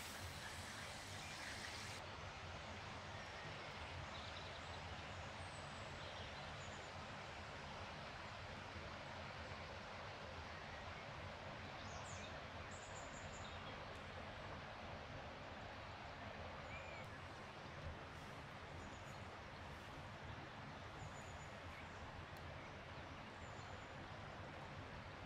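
Steady forest background hiss with scattered faint, high, short bird chirps, and a small click about two-thirds of the way through.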